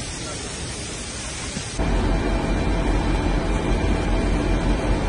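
A steady hiss, then an abrupt cut about two seconds in to a louder, steady low rumble with a faint steady hum: fire trucks' engines running.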